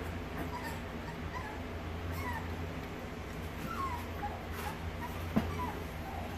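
Four-week-old puppy whimpering in short, high squeaks that slide in pitch, protesting as it is dosed with liquid dewormer by syringe. A steady low hum runs underneath, and there is a single sharp click about five seconds in.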